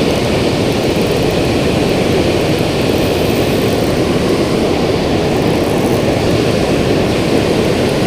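Steady rush of water pouring over a dam spillway, an even roar that does not change.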